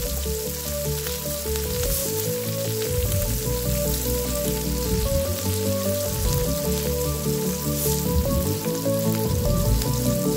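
Food frying in hot oil in a pan, a steady sizzle, with background music playing over it.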